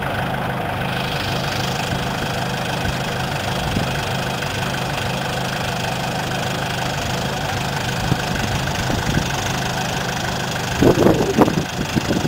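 WWII jeep's four-cylinder flathead engine running steadily, with a few louder irregular sounds near the end.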